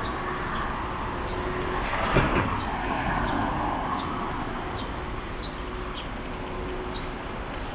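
Street traffic at a city intersection: a steady hum of traffic with a car passing close by about two seconds in. Small birds chirping in the trees above, short falling notes every half second or so.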